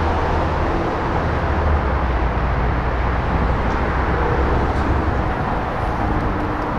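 Steady road traffic noise with a deep low rumble, from vehicles on the freeway overpass and the road at the crossing.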